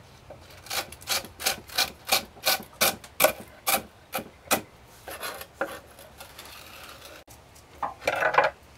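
Chef's knife chopping crispy pulled pork bits on a wooden cutting board, about three chops a second, fading to lighter chops, then a short louder scrape near the end.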